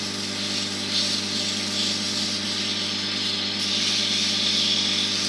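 Wood lathe running with a steady hum while 180-grit stearate sandpaper is held against the spinning oak pen blank, giving a hiss of sanding that swells about a second in and grows again after about three and a half seconds.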